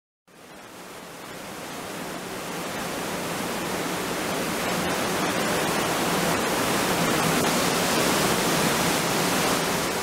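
Kaminari-daki waterfall's steady rush of falling water, fading in over the first couple of seconds.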